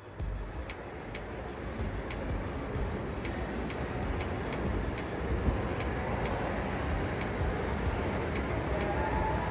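Steady outdoor road traffic noise: a continuous low rumble of passing vehicles.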